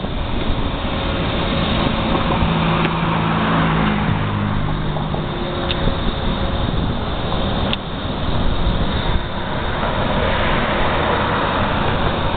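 Road traffic noise, with a motor vehicle's engine hum rising about two seconds in and fading by about five seconds, over a steady low rumble.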